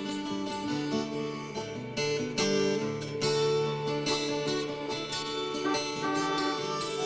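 Instrumental background music with plucked strings playing a steady tune.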